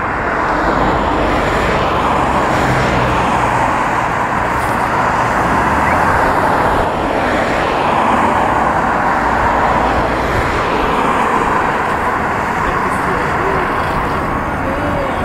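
Boeing 777-200ER's twin GE90 jet engines at takeoff thrust: a loud, steady rush of jet noise as the airliner rolls, rotates and climbs out. A steady whine comes up near the end as it passes overhead.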